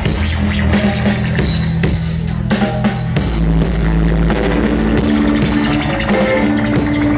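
Rock music, a band with guitar and drum kit playing, with held bass notes under regular drum hits.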